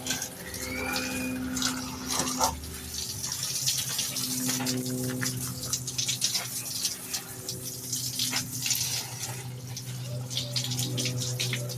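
Water running and splashing, with many small drips and ticks, over a steady low hum.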